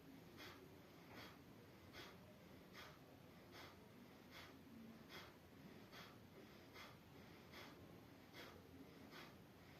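Faint, rhythmic breathing: short, hissy breaths, evenly spaced at a little more than one a second.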